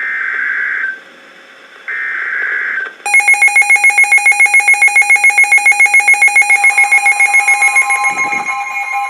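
Emergency Alert System SAME data header: screechy digital bursts about a second long, separated by short gaps. About three seconds in, a loud electronic alert tone starts, pulsing about five times a second, and a second steady tone joins it about two-thirds of the way through.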